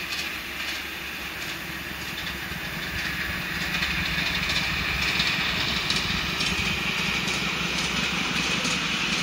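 5-inch gauge miniature steam locomotive running along the track and approaching, growing steadily louder, with irregular clicks of the wheels on the rails.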